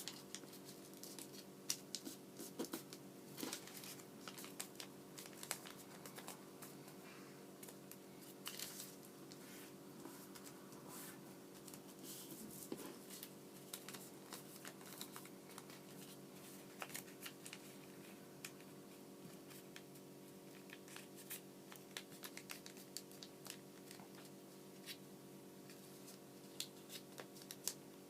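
A sheet of origami paper being folded and creased by hand: faint, scattered rustles and crisp little clicks over a steady low hum.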